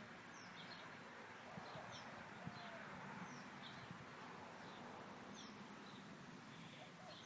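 Faint outdoor background of a bird chirping over and over, short falling chirps about once a second, over a steady thin high-pitched whine.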